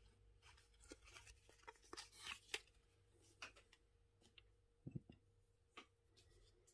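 Near silence with a few faint clicks and soft rustles of trading cards being handled and laid down on a wooden table, and a soft knock about five seconds in.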